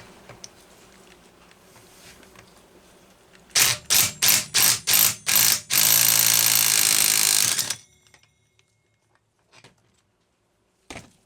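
Impact wrench (rattle gun) hammering on the clutch of a Homelite Super XL chainsaw, the flywheel held by hand: six short trigger bursts, then about two seconds of continuous hammering that stops abruptly.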